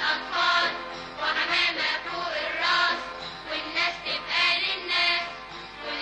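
Children's choir singing a theme song over an instrumental backing.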